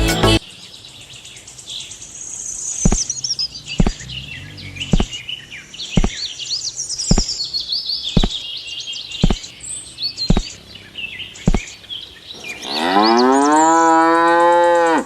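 Birds chirping with a sharp click repeating about once a second, then a cow mooing in one long, loud call over the last two seconds or so.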